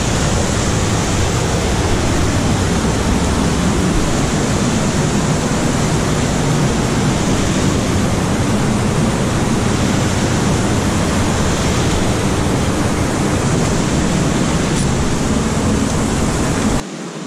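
Fast creek water rushing steadily, a loud even hiss with a heavy low rumble underneath; it drops away suddenly near the end.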